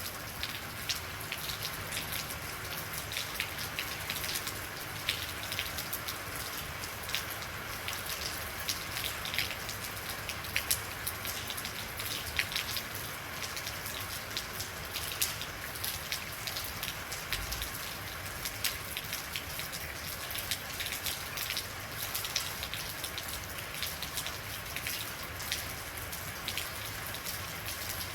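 Steady rain falling, a continuous hiss with many individual drops ticking and pattering on a hard surface close by.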